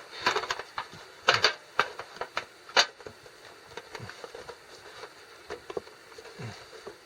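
Thin aluminium baking and muffin trays clattering and clinking as they are handled and fitted together, with a few sharp knocks in the first three seconds and then lighter taps.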